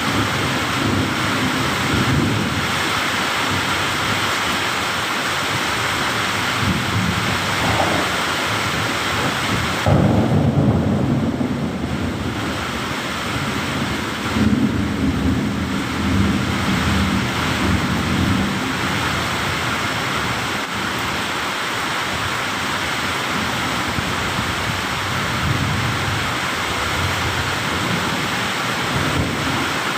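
Heavy rain falling steadily through a thunderstorm, with low rolls of thunder. The loudest rumble starts about ten seconds in, and another follows a few seconds later.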